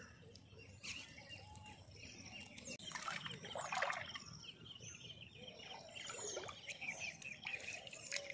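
Birds chirping and twittering in the background, over a low outdoor hum. A brief louder noisy burst comes about three seconds in.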